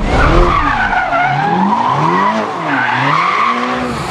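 A car engine revving up and down with tires squealing, as in a drifting or racing clip.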